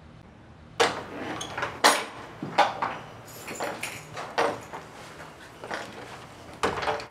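A door being handled: a string of sharp clicks and knocks, roughly one every half second to a second, with some echo. They start about a second in.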